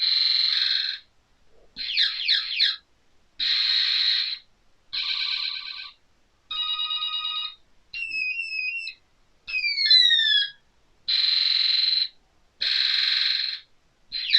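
1993 Kellogg's Rice Krispies Sound Flyer frisbee's electronic sound chip playing a string of short synthesized sound effects through its small speaker. About nine effects follow one another with brief gaps: buzzy bursts, falling and rising sweeps, and stepped beeping tones.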